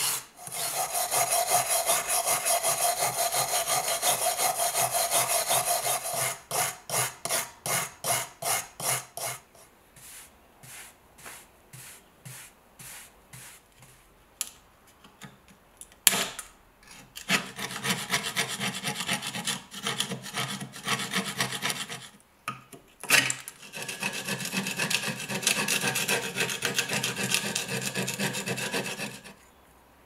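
Steel wire brush scrubbing rust off an old pocket knife in rapid back-and-forth strokes, easing to lighter strokes after about nine seconds. After a sharp click, a metal tool scrapes rust along the knife's handle in quick, continuous strokes, stopping just before the end.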